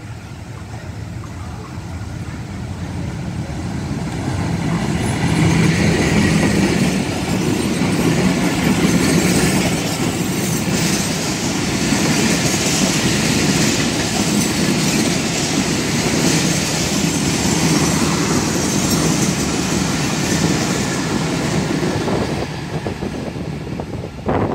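Diesel-hauled passenger express running through a station at speed without stopping. The sound of the locomotive and its wheels grows louder over the first few seconds as it approaches, then holds as a steady loud rush and rumble of the coaches' wheels on the rails as they pass.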